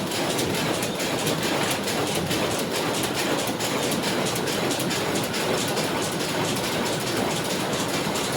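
A machine running steadily with a fast, even clatter of clicks over a constant mechanical whirr.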